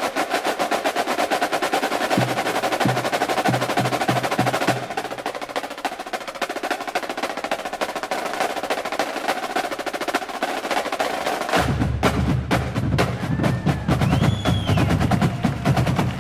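A massed drum corps playing rapid, tightly unison side-drum rudiments in the Basel drumming style. Bass drums come in with heavy low beats for a moment about two seconds in, then join steadily from about twelve seconds in.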